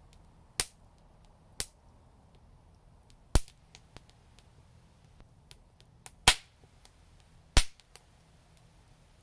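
Newly lit wood fire in an outdoor brick fireplace, crackling: five sharp pops spread over several seconds, the loudest about a third of the way in and twice near the end, with fainter ticks between them.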